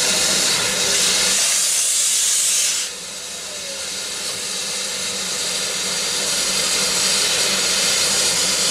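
BR Standard Class 4MT 2-6-4 tank steam locomotive venting steam with a loud hiss that cuts off sharply about three seconds in. A quieter hiss then builds up again as the engine starts to move off.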